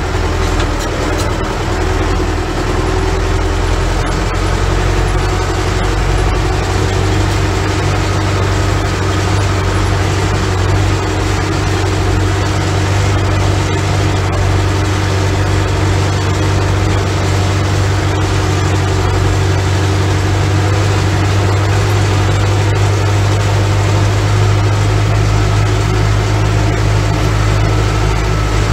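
Ursus tractor's diesel engine running steadily while hauling a loaded trailer, heard from inside the cab as a loud, even low hum.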